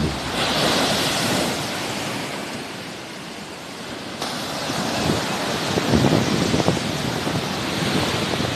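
Sea waves washing onto the shore: a rushing hiss that swells, eases off around the middle and builds again, with wind buffeting the microphone.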